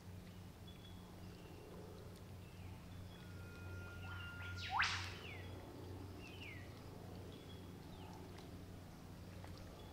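Eastern whipbird calling: a long held whistle, then a loud whip-crack rising sharply in pitch about five seconds in, followed by two short falling notes. A faint steady low hum runs underneath, with faint chirps from other birds.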